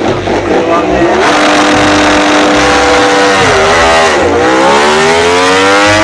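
Ducati Desmosedici MotoGP racing motorcycle's V4 engine revving loudly. It holds a steady note, drops briefly just past halfway, then climbs steadily as the bike accelerates away.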